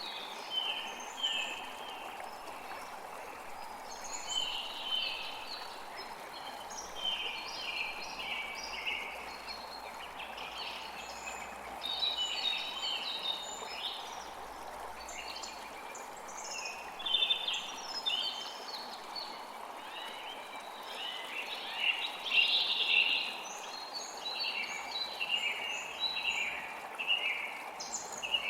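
Creek water flowing steadily, with birds singing over it in frequent short, chirping phrases.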